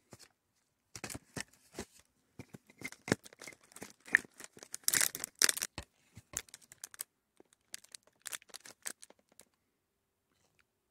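Plastic wrapping crinkling and crackling in irregular spurts as a new lambda (oxygen) sensor and its connector are handled, with short pauses between, dying away near the end.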